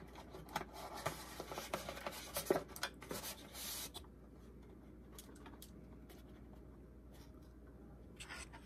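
Paper and cardboard packaging being handled: soft rustling with light taps and clicks, dying away to quiet room tone about four seconds in.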